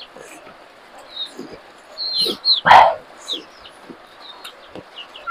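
A dog barks once, loudly, a little under three seconds in, over short high bird chirps that come and go.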